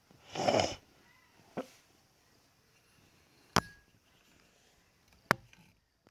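Handling noises: a short rustling burst about half a second in, then sharp single knocks, one faint and two loud, a second or two apart, as a heavy object is picked up and moved.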